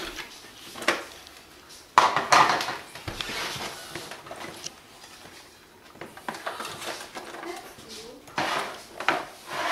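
Hard plastic seat and body panels of a toy ride-on quad being handled and lifted off to open the battery compartment: a sharp clack about two seconds in, then rattling and scraping of plastic parts, with more handling noise near the end.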